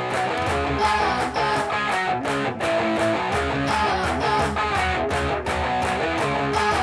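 Background music: upbeat guitar-led track with a steady beat and strummed plucked-string chords.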